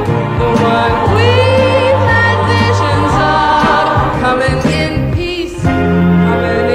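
A woman singing the lead vocal of a late-1960s pop song, belting held and gliding notes, over a band with a steady bass line.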